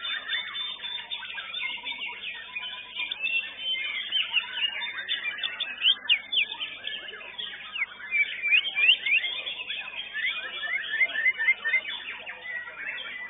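White-rumped shama (murai batu) singing in a contest cage: a fast, varied stream of whistles, chirps and sharp sweeping notes. Near the end comes a run of quick repeated notes.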